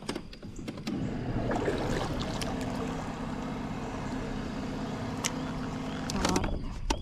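Boat's trolling motor running steadily for about five seconds, then switched off, with a few sharp clicks near the end.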